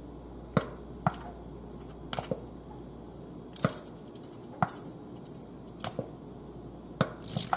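A nearly empty squeezable plastic honey bottle, held upside down over a measuring spoon and squeezed to get the last honey out: about a dozen sharp clicks and crackles at irregular intervals.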